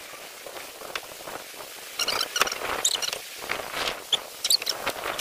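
Water sloshing and dripping in a stock-tank ice bath as a man moves his hands, with short high squeaky blips. From about two seconds in the sound becomes a run of small irregular splashes and squeaks over a steady hiss.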